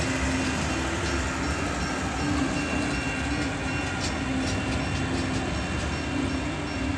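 Freight train wagons rolling over a level crossing, a steady rumble with wheels clacking over the rail joints. The crossing's Safetran electronic bell rings through it.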